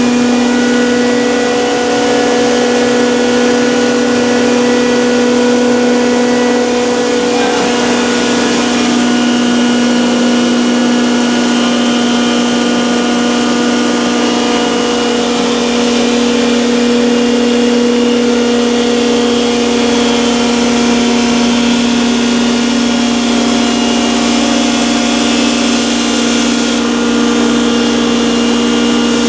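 Electric masala pulveriser, a spice-grinding machine, running steadily: a loud, even hum that holds one pitch throughout.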